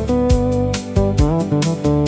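Instrumental passage of a studio pop song, no singing: a steady drum kit beat with a guitar line that slides between notes.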